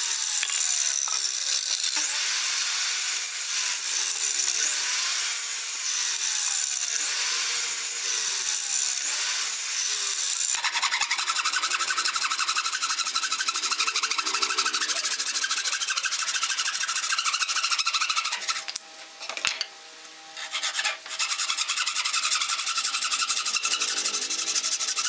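Wooden frame saw cutting through a stack of thin wooden boards: rapid back-and-forth rasping strokes, broken by short pauses a little past the middle. It is preceded by about ten seconds of steady high hiss with faint gliding tones.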